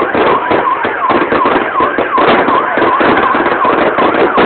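Aerial fireworks going off: dense crackling and popping, with a chirping tone that dips and rises in pitch about three times a second.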